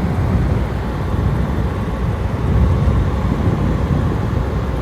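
Frigidaire 12,000 BTU window air conditioner running on low cool, compressor on and cooling: a steady, rumbling whoosh of fan and airflow, slightly louder about halfway through.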